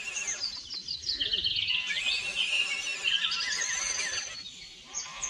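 Several birds chirping and warbling in quick overlapping calls, fading briefly near the end.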